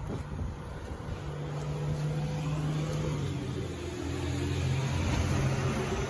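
A motor vehicle's engine running in street traffic, a low steady hum that shifts in pitch and grows louder toward the end.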